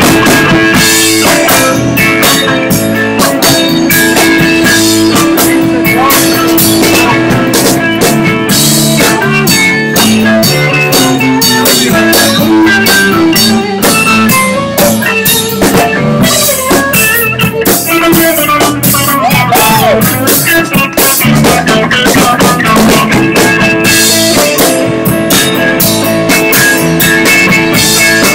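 Live blues-rock trio playing an instrumental passage with no singing: electric lead guitar, electric bass and drum kit, with regular drum and cymbal hits.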